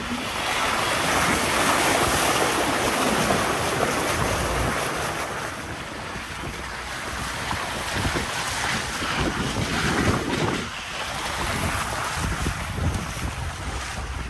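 Wind rushing over the microphone of an open safari jeep on the move, a steady loud noise with a low rumble beneath that rises and falls.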